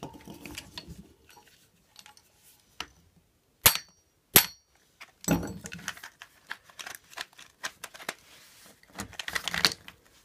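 Metal tools and stroller wheel parts being handled on a concrete floor: two sharp metallic clinks with a short ring just before the middle, then clatter and a run of small knocks and clicks.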